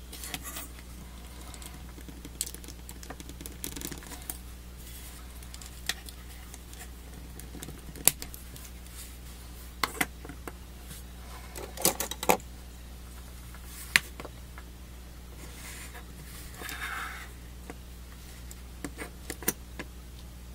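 Plastic model-kit parts clicking and snapping as they are pressed together, handled and set down on a cutting mat: about a dozen scattered sharp clicks and a brief rustle, over a steady low hum.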